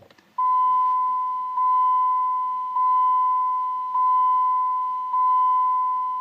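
2000 Dodge Neon's dashboard warning chime dinging with the key on and the engine off: five even dings of one steady mid-pitched tone, about one every 1.2 seconds, each fading slightly, starting about half a second in. The owner takes the chime as the sign the car is not yet ready to start.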